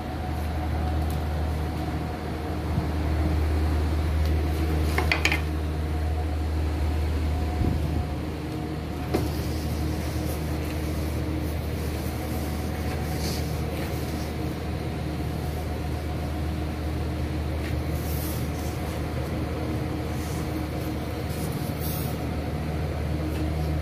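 Steady low machine hum with a faint constant whine above it, with a few brief knocks and scrapes as the panels are handled.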